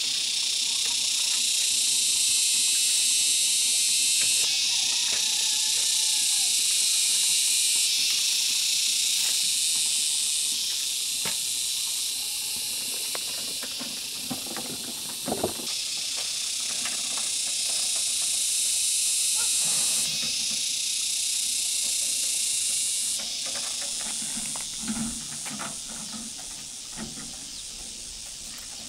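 Loud, steady high-pitched buzz of insects, its level stepping up and down every few seconds. A few scrapes and knocks from a shovel and wheelbarrow sound under it, mostly near the middle and toward the end.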